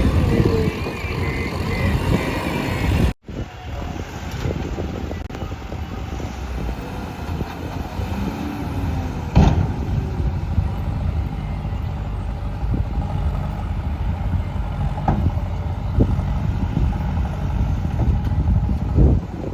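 Diesel engines of heavy vehicles running steadily, with a few sharp knocks and clanks. The sound cuts off for an instant about three seconds in.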